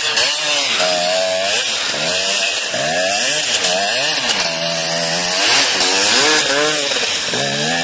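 KTM 250 two-stroke motocross bike's engine revving hard, its pitch rising and falling over and over as the throttle is blipped and held while the bike spins and slides in snow.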